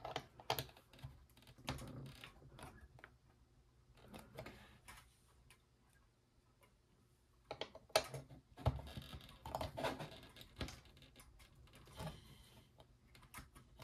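Scattered small clicks and taps of metal poles being pushed into the slots of a plastic kinetic desk toy base, with a quiet pause midway.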